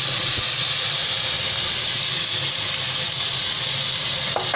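Chicken and chopped onion frying in hot oil in a metal pot, giving a steady sizzle.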